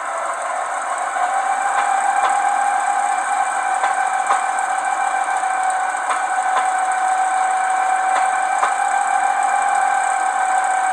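Köf II model diesel shunting locomotive's sound decoder playing its running diesel engine sound, the engine note rising slightly about a second in. Simulated rail-joint clicks sound in pairs about every two seconds, as at slow speed over track joints.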